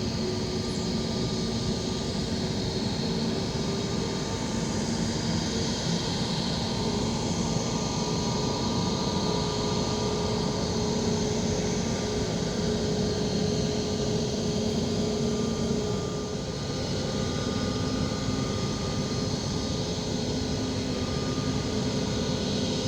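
Aircraft engines running steadily: a constant rushing noise with several steady hum tones that drift slightly in pitch, dipping briefly in level about sixteen seconds in.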